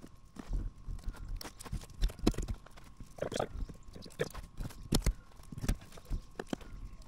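Irregular light taps, knocks and handling noises of brushwork on a fiberglass lawn-tractor hood: a paintbrush dabbing resin into fiberglass cloth and being laid down in a plastic mixing dish.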